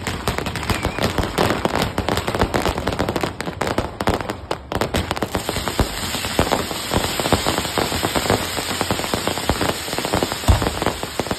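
Aerial fireworks bursting overhead in a dense barrage: a continuous rapid crackling and popping, with one louder bang about ten and a half seconds in.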